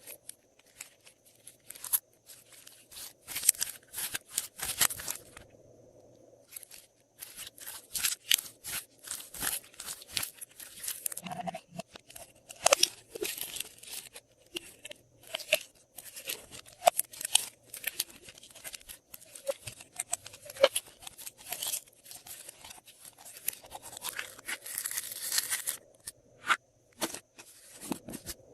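Glossy slime being worked by hand, giving dense bursts of sticky crackling and popping clicks with short pauses between them.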